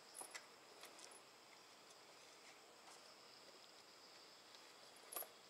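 Near silence: faint steady background hiss with a few soft clicks, about a quarter second in, around a second in and near the end.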